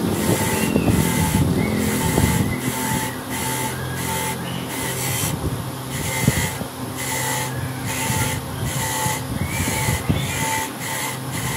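Bench-mounted electric motor running steadily with a hum, its abrasive wheel scraping a small rusty bolt held against it; the scraping hiss rises and falls as the bolt is pressed on and turned.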